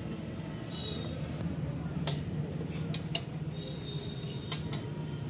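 A few sharp metallic clinks and taps of tools on metal parts as the motorcycle's front wheel is being taken off, over a steady low hum.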